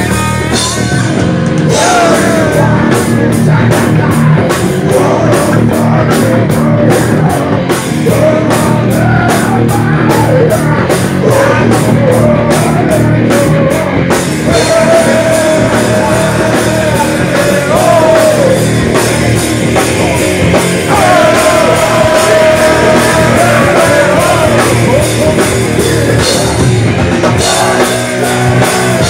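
Rock band playing live and loud: electric guitar, drum kit and vocals.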